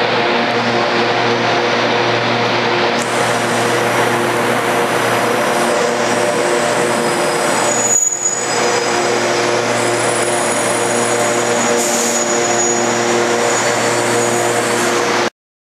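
Class 92 electric locomotive moving slowly past, its traction equipment and cooling fans giving a loud, steady hum of several tones. A high whine joins it about three seconds in, and the sound cuts off suddenly near the end.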